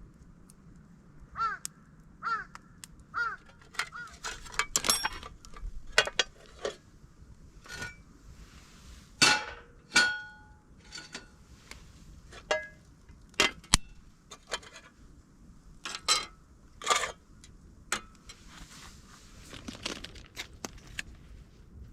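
Irregular clinks, knocks and clatter of hard objects being handled, some ringing briefly. In the first few seconds there are also four short pitched calls about a second apart.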